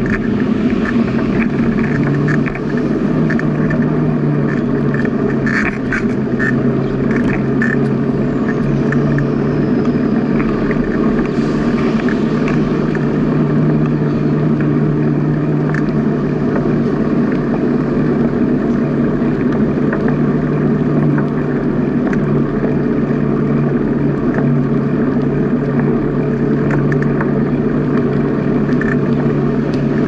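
Steady, loud ride noise from a camera mounted on a bicycle rolling along a paved path at about 15 km/h: wind and tyre rumble with a constant low hum, broken by scattered small clicks and rattles from bumps.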